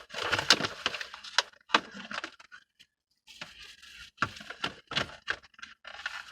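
Takeout food containers and packaging being handled and arranged: a run of sharp crackles and clicks, with a brief pause about halfway through.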